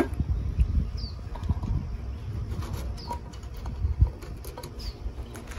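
A small bird gives a short falling chirp three times, about two seconds apart, over low rumbling and a few handling knocks, the loudest about four seconds in.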